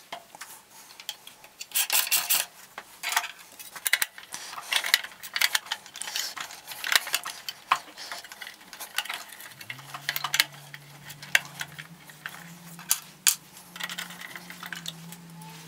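Clicks, knocks and rattles of hands fitting a sanding belt and the plastic belt cover onto a small bench belt sander, then a screwdriver turning the cover screw. A low steady hum comes in a little past the middle.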